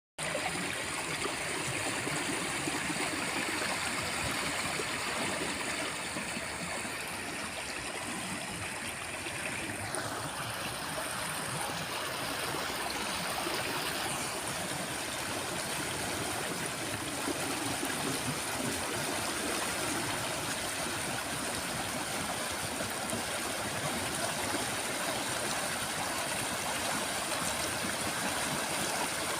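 Forest river flowing: a steady, continuous rush of running water.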